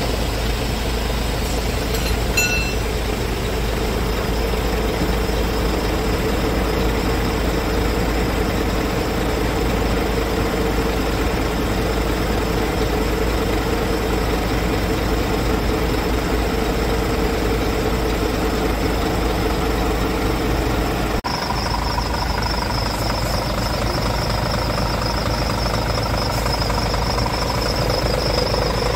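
Scania R450's 13-litre inline-six diesel idling steadily. After a cut about two-thirds of the way through, a thin high whine joins the idle.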